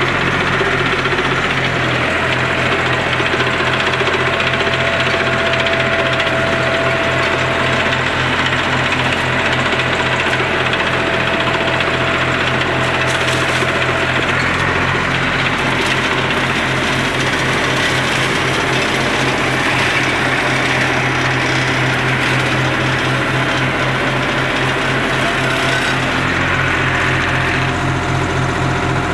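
Tractor engine running steadily under load, driving a Maschio BC 160 flail mulcher, with a regular low throb. The sound changes a little near the end.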